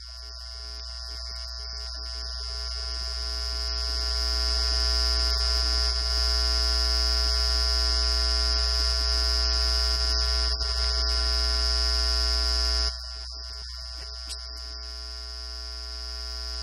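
Electrical buzz with mains hum: a steady chord of many fixed tones over a strong low hum and a high whine. It swells louder over the first few seconds, drops suddenly about 13 seconds in, then climbs again toward the end.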